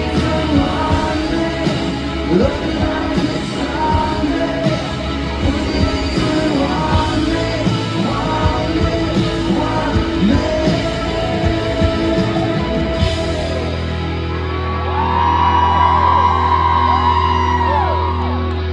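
Live rock band playing with steady drums. About thirteen seconds in, the drums stop and the band swells into a louder held chord with sliding high notes over it.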